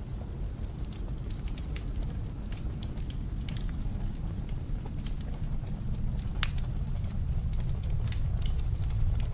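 Wood fire crackling and popping in a fireplace, irregular sharp snaps over a steady low rumble of blizzard wind that grows a little stronger toward the end.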